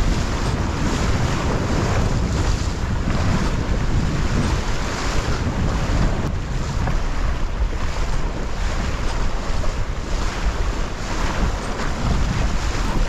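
Wind buffeting a GoPro's microphone while windsurfing, over rushing and splashing water from the board and the surf. The rumble and hiss rise and fall unevenly.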